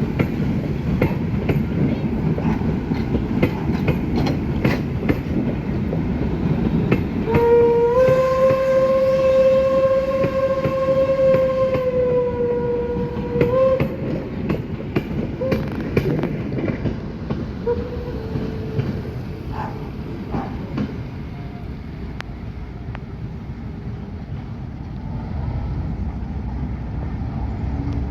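Steam locomotive 65 018, a German class 65 tank engine, working a train past with a steady rumble and clatter of wheels and rails. About seven seconds in it sounds one long steam-whistle blast lasting about six seconds, rising slightly in pitch at the start and dipping as it ends; afterwards the train noise gradually fades.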